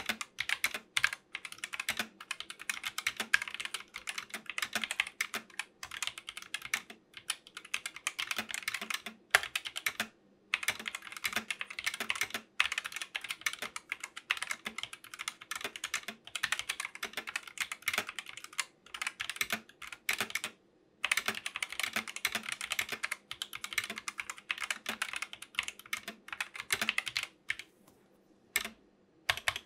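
Typing sound test on a 60% mechanical keyboard fitted with stock, unlubed optical silver linear switches: a fast, continuous run of keystrokes with short pauses about ten seconds in, about twenty seconds in and near the end.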